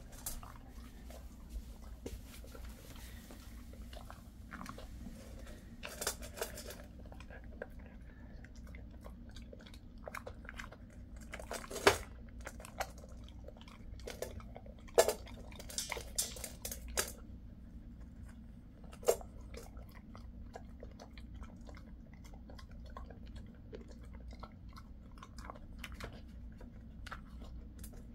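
A Jindo-mix dog chewing and crunching treats, with scattered small clicks and a few louder sharp knocks near the middle.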